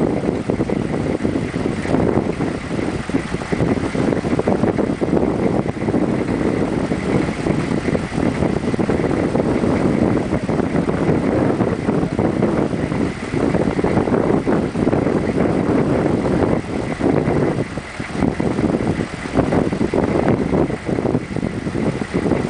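Rushing glacial river water mixed with wind buffeting the microphone: a steady, rough noise that flickers in loudness.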